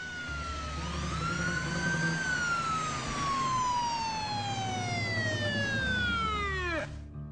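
Police car siren: one wail that rises, then falls slowly in pitch for several seconds and drops away sharply as it stops near the end, over a low rumble of traffic.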